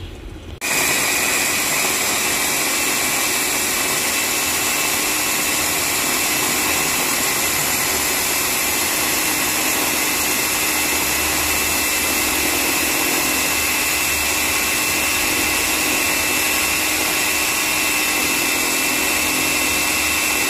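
Electric glass-bowl food chopper running at one steady speed, grinding shrimp, egg, garlic and shallots into a paste. Its motor gives a constant high whine and switches on abruptly about half a second in.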